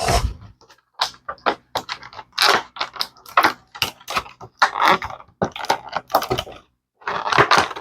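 Small plastic action-figure parts being handled: a quick, irregular run of light clicks and short rustles as the spare hands are picked up and set down.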